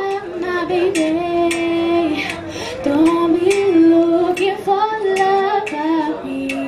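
A woman singing live, long held notes that slide from pitch to pitch, over strummed acoustic guitar.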